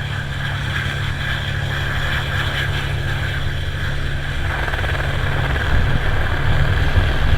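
Helicopter rotor beating steadily with a higher steady whine above it, wind rushing on the microphone, growing gradually louder.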